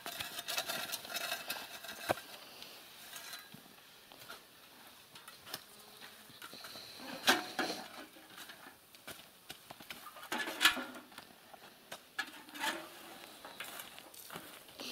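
Shovel blades scraping and scooping soil and gravel on a dirt road as potholes are filled and levelled. The scrapes come separately, the loudest about seven and eleven seconds in.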